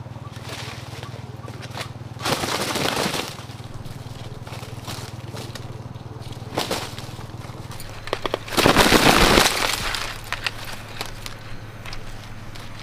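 A snared wild rooster flapping its wings and thrashing in dry leaves as it is grabbed and handled: two bouts of about a second each, the second louder, with lighter rustling and crackling between.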